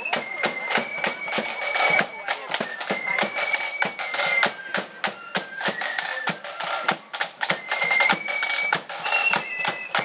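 Marching flute band playing a tune: flutes carry a high melody in held, stepping notes over fast, crisp side-drum strokes.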